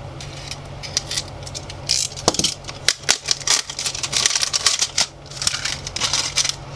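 Hands handling a small plastic toy capsule and its wrapper: irregular crinkling and rustling with many sharp plastic clicks, over a steady low hum.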